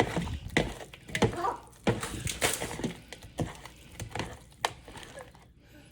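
Raw shrimp being tossed by hand with dry seasoning in a bowl: an irregular string of soft wet clicks and squishes, about two a second, fading near the end.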